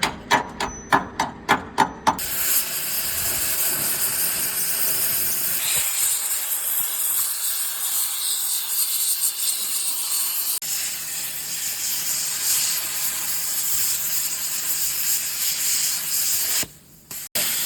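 Welding arc sizzling steadily on steel, briefly broken about halfway and stopping shortly before the end. It follows a quick run of strikes, about four a second, in the first two seconds.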